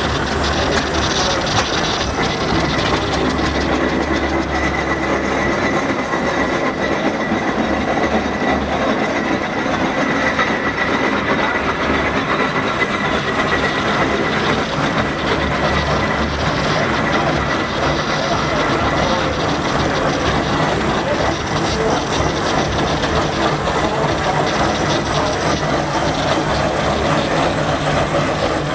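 Steam traction engines running together: a loud, unbroken mechanical din with hiss and many steady tones, and a thin high tone held through roughly the first half.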